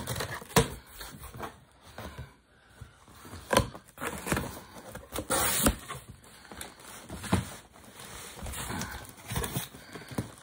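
Cardboard shipping box being cut open with a pocket knife and its flaps pulled back: irregular scrapes and rustles with a few sharp knocks.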